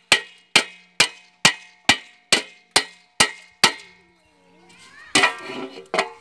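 Hammer striking the bottom of an aluminium pot, nailing a patch plate over a leak in its base: steady ringing metal blows about two a second that stop after about nine strikes. Then metal scraping and clattering with two sharp knocks as the pot is shifted onto an iron stake.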